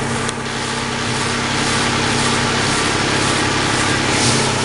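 Engine running steadily under throttle, held at high revs, with a dense steady hiss over its note.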